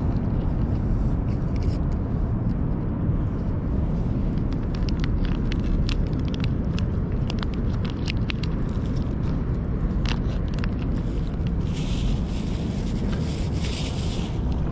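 Wind rumbling on the microphone, with close-up clicks and smacks of cats eating wet cat treat from a steel dish from about four seconds in. A rustling hiss follows near the end.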